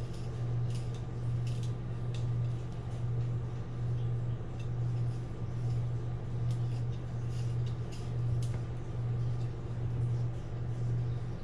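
A fillet knife cutting along an unscaled American shad on a plastic cutting board, heard as faint, scattered scratchy clicks of the blade through the scales. Under it runs a steady low hum, the loudest sound.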